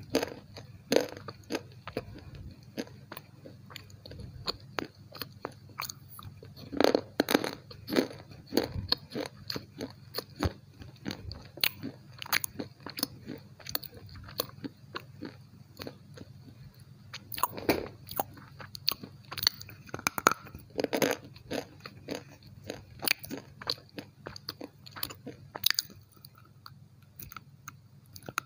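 Close-miked crunching and chewing of something hard and brittle: irregular sharp crunches in clusters, heaviest about seven seconds in and again around eighteen to twenty-one seconds in, with quieter chewing between.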